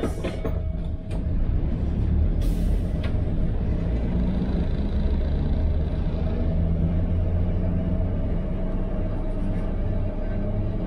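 Vintage 1942 tram running along the track, heard from inside the driver's cab: a steady low rumble of wheels and motors with a faint steady hum. There are a few clicks near the start and a short hiss of compressed air about two seconds in.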